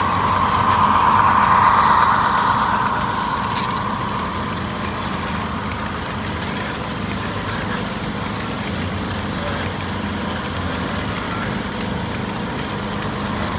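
A steady engine hum with a low drone. A rushing noise swells over the first couple of seconds and then fades back.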